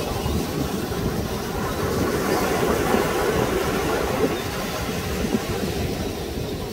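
Steady rushing beach ambience of surf and wind, with no distinct calls or knocks.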